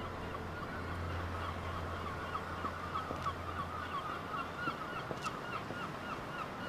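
A flock of birds calling: a steady stream of short, rapid, repeated calls. A low steady hum lies under the first four seconds and then stops.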